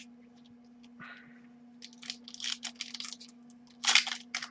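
A pack of basketball trading cards being opened and its cards handled: short papery scratches and rustles of wrapper and card stock, starting about two seconds in and loudest near the end. A steady low hum runs underneath.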